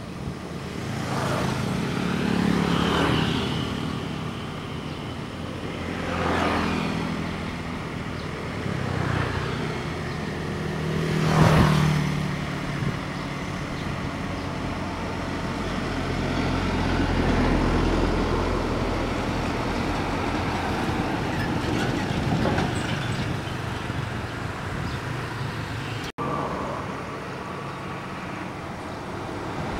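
Traffic passing close by on a two-lane road: several motorcycles go past one after another, each swelling and fading, the loudest about eleven seconds in. Around the middle, the deep engine sound of diesel trucks builds as they pass, and the sound briefly cuts out near the end.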